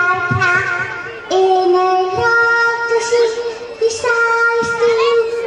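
A woman singing a song through a microphone, holding long notes and sliding between them.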